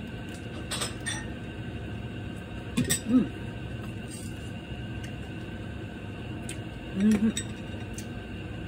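Kitchen clatter over a steady hum: light clinks of kitchenware about a second in and near three seconds, and two short voice sounds around three and seven seconds, the loudest things here.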